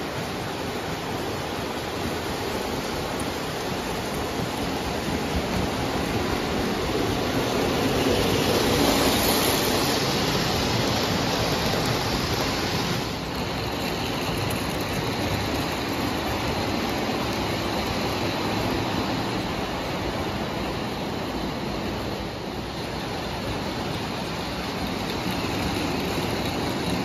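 Lionel O gauge toy trains running on three-rail tubular steel track: a steady rolling rumble and motor whir from the metal wheels and locomotives. It swells somewhat louder about a third of the way through.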